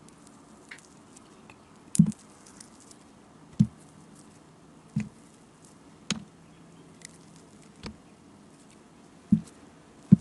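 A flat razor blade slicing through a bar of soap: about seven short, crisp cuts, one every one to two seconds, each a sharp crack as the blade goes through and a piece comes away.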